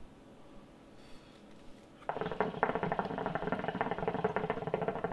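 Water bubbling in a Wookah hookah's base as smoke is drawn through the hose: steady bubbling starts suddenly about two seconds in and runs on.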